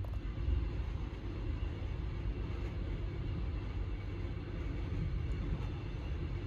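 Steady rumbling running noise of a moving passenger train.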